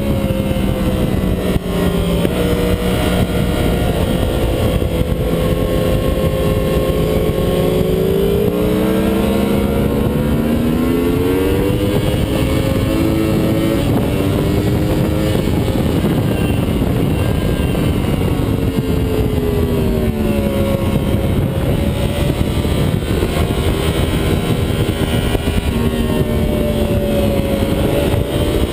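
2009 Yamaha R1 crossplane inline-four sportbike engine heard from on board at track speed. Its pitch rises and falls in long sweeps as the rider accelerates and rolls off, over a steady rush of wind.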